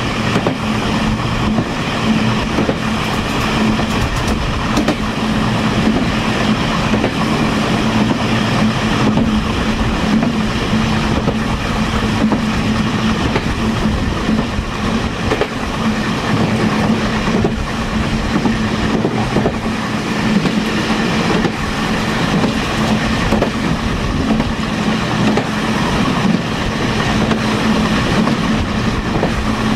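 Taiwan Railways Chu-Kuang express passenger train running at speed, heard from inside its rear parlor car: steady wheel-on-rail running noise with a constant low hum and occasional faint clicks.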